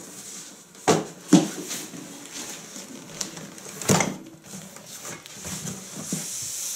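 Cardboard appliance box being handled and set down on a table: a few sharp knocks, two close together about a second in and another around four seconds, with light rustling in between.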